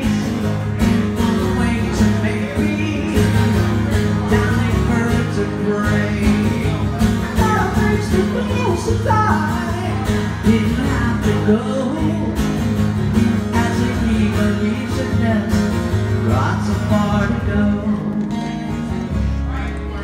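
Acoustic-electric guitar played live through an amplifier, an instrumental passage of picked and strummed chords over a steady low bass.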